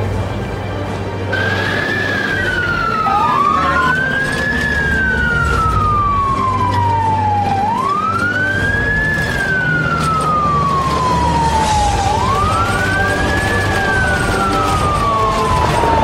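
Fire engine siren wailing, heard from inside the truck's cab: each cycle rises quickly, then glides slowly down, repeating about every four and a half seconds from about a second in. A low steady engine hum runs underneath.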